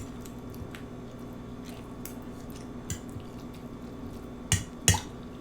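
Eating sounds close to the microphone: a few soft clicks, then two sharper clicks about a third of a second apart near the end, over a steady low hum.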